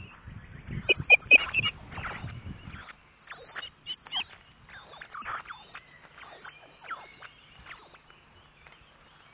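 Osprey at its nest giving a quick run of short, high chirps about a second in, over wind rumbling on the microphone. Scattered soft clicks and faint chirps follow.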